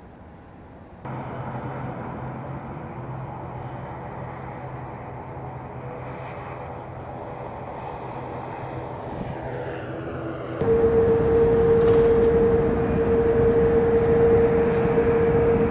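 Steady outdoor background rumble with a low hum, recorded on location. It changes abruptly twice: it gets louder about a second in, then louder again about two-thirds of the way through, when a steady higher hum joins it.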